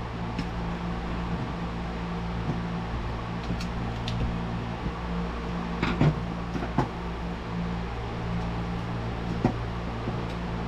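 Steady machine hum, like a shop fan running, with a few scattered light clicks and taps of small parts being handled.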